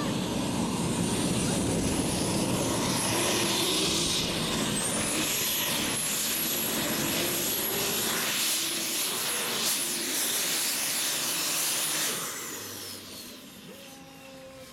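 Mini tractor puller's engine running flat out under load through a full pull, with a high whine over it. About twelve seconds in the engine cuts off and the whine winds down, falling steadily in pitch.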